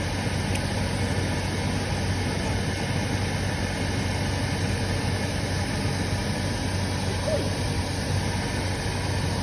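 Oil boiler burner motor and fuel pump running steadily with a low hum while the pump's bleed screw is open, purging air from the oil line until the fuel runs clear after a lockout from running the tank too low.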